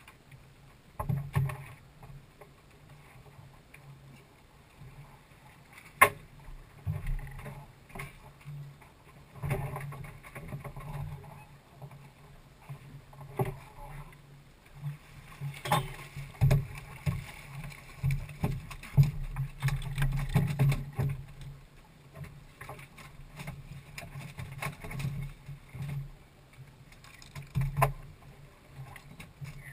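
Knocks, thuds and rattles in a small open fishing boat as snoek are handlined and worked over the side, with one sharp crack about six seconds in and a busier stretch of clattering in the middle.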